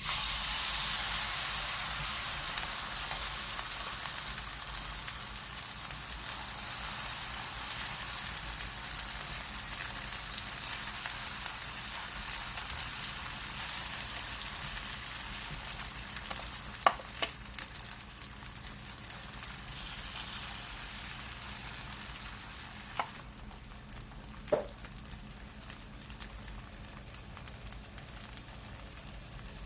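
Food sizzling as it fries in a hot pan. The sizzle starts suddenly and slowly dies down, with a few light clicks, likely a utensil against the pan, in the second half.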